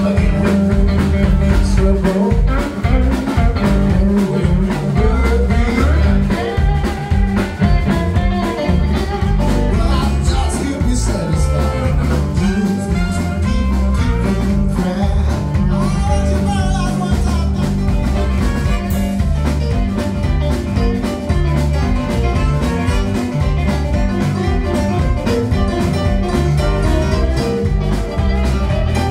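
Live band playing electric guitars, saxophone, bass and drums, with a steady drum beat.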